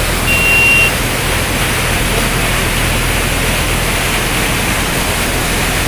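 Muddy floodwater rushing in torrents down a stone channel and gully, a loud steady rushing noise with no let-up. A brief high steady tone sounds once near the start.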